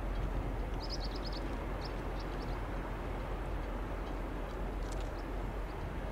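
Steady low rumble of a passing cruise ship's engines, with a few short, high bird chirps in the first half.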